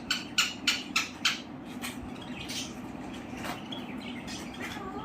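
Pet parakeet squawking: a quick run of about six short, harsh calls, roughly three a second, in the first couple of seconds, then fainter scattered calls.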